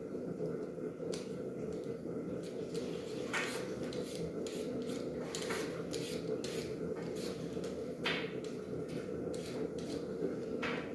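Kitchen knife peeling and cutting potatoes by hand: short, crisp scraping strokes at an irregular pace of about one or two a second.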